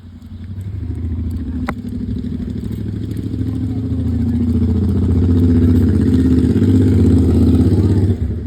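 A motor vehicle's engine running close by, growing louder over about five seconds, then dropping away sharply about eight seconds in. A single click about two seconds in.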